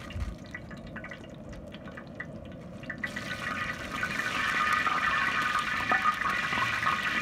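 Dried red chillies and whole spices frying in hot oil in a large aluminium pan, sizzling and crackling, stirred with a wooden spatula. The sizzle turns suddenly much louder about three seconds in.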